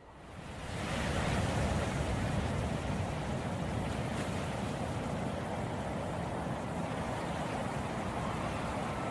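Ocean waves washing on the shore, a steady rushing surf that fades in over the first second and then holds even.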